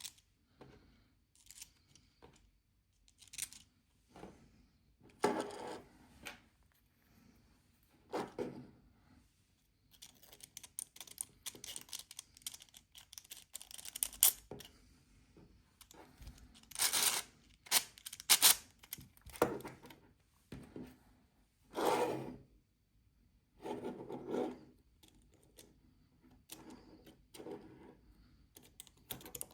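Hard 3D-printed plastic parts being handled and fitted together by hand, with irregular bursts of scraping, rubbing and clicking and short pauses between.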